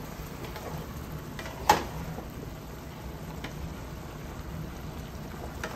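Beef cubes sizzling and simmering in their own juices in a skillet, over a low hum, while a wooden spatula stirs them. The spatula knocks once sharply against the pan about two seconds in, with a few lighter taps.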